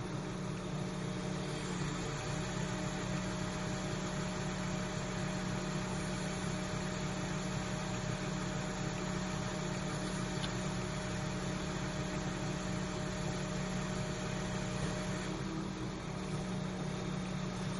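An engine running steadily at a constant pitch, a low hum with no change in speed.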